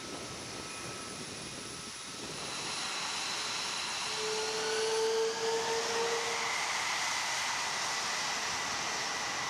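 Jet aircraft passing, its broad roar swelling about two seconds in, with turbine whines that glide up in pitch; loudest around the middle.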